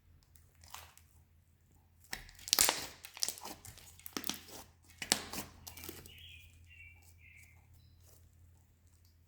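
Thick slime being squished, stretched and poked by hand, giving irregular crackly pops and clicks. The popping is busiest in the middle stretch and then dies down to faint handling.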